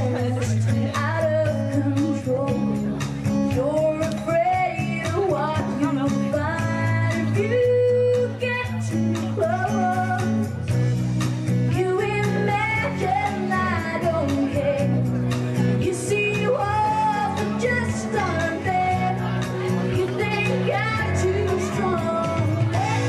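A woman singing a song into a microphone, amplified, over steady instrumental backing with a regular beat.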